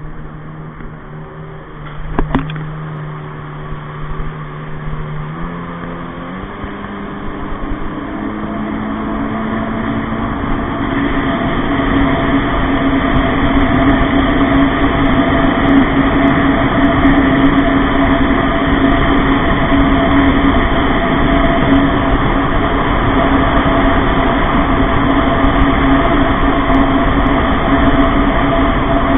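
Kawasaki Ultra LX jet ski's four-stroke engine pulling away, its pitch climbing in steps over the first ten seconds or so, then holding a loud, steady high-speed run over the rush of wind and water. A single sharp knock sounds about two seconds in.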